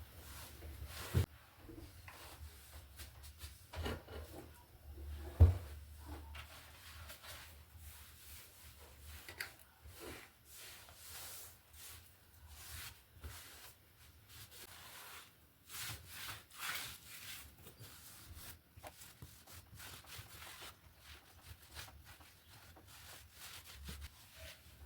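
Household cleaning and tidying: a cloth rubbing over surfaces, with scattered knocks of things being handled and moved, the loudest a sharp knock about five and a half seconds in.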